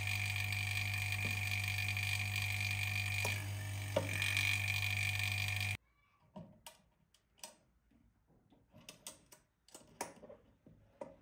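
Nasan Supa Lite laminating machine running with a steady electrical hum, which cuts off abruptly about six seconds in. Faint scattered clicks and knocks follow.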